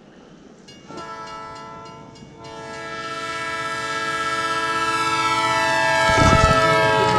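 Train horn blowing a chord of several steady tones: a short blast about a second in, then a long blast from about two and a half seconds that grows steadily louder as the train draws near.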